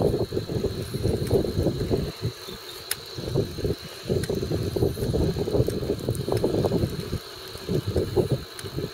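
Wind rushing over the microphone of a camera on a moving bicycle, uneven and gusty. It eases off briefly a little after two seconds in and again near the end, with a faint steady high whine underneath.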